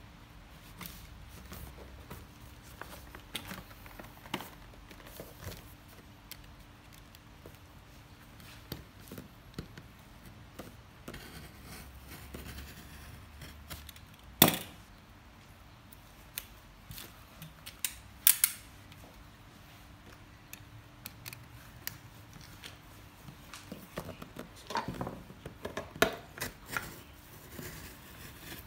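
Box cutter slicing the seal on a cardboard product box: scattered light scrapes and clicks, one sharp knock about halfway through, and a quick run of cutting strokes near the end.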